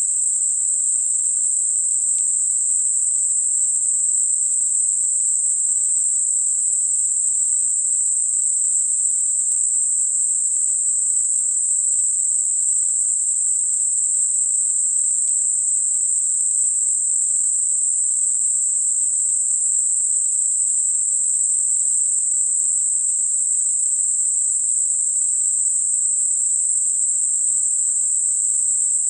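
Steady, even high-pitched hiss of electronically generated narrow-band noise centred at 8 kHz and spanning about 6 to 10 kHz, with nothing lower: a tinnitus masking sound.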